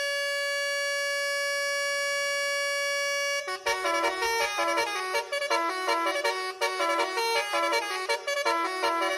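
Roof-mounted telolet bus air horn: one steady note held for about three and a half seconds, then a fast tune of short notes stepping up and down.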